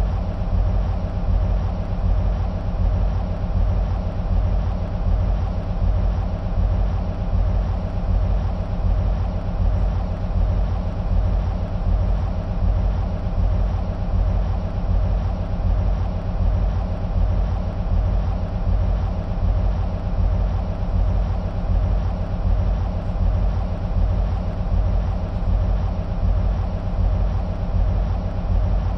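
EMD SW1500 switcher locomotives' 12-cylinder two-stroke diesel engines idling with a steady low, pulsing throb.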